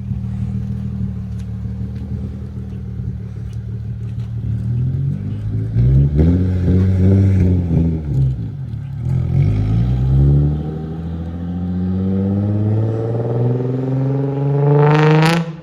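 Nissan 350Z's 3.5-litre V6 running, revving up and falling back about six to eight seconds in, then climbing steadily in pitch to high revs near the end before dropping off suddenly.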